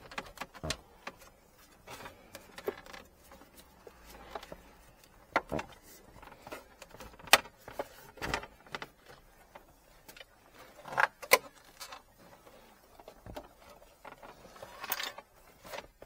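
Plastic interior trim around a car's centre console being handled: irregular clicks and knocks, the sharpest about seven and eleven seconds in, with a brief rustle near the end.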